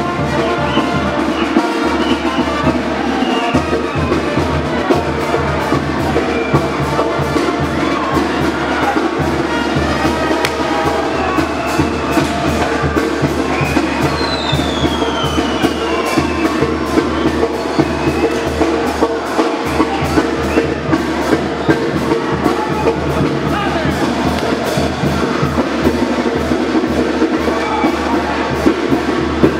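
Live band music with drums keeping a steady beat and sustained melody over it. A high tone glides downward about halfway through.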